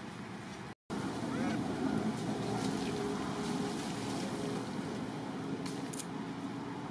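Steady rushing outdoor background noise, broken by a moment of dead silence under a second in, with a few faint clicks near the end.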